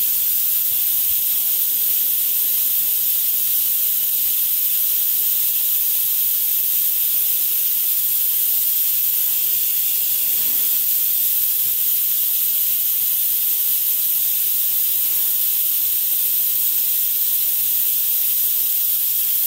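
Kiwa 510 Colt vertical machining center powered up with its table and spindle head moving: a loud, steady hiss, with a faint steady hum underneath that comes in about a second and a half in.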